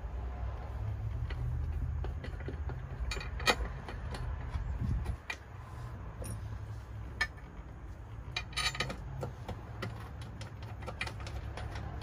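Scattered metallic clicks and clinks of bolts and hand tools as a seat base adapter plate is bolted down, several coming in quick clusters a little after three seconds and between eight and nine seconds. A low steady rumble runs underneath and is stronger in the first five seconds.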